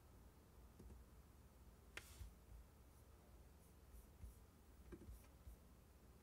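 Near silence: room tone with a few faint taps, the clearest about two seconds in and another about five seconds in.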